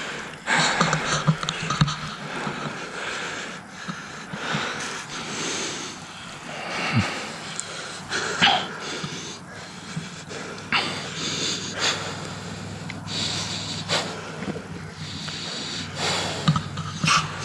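A person breathing hard, in repeated noisy gasps, with rustling and scattered sharp clicks and knocks of movement and camera handling.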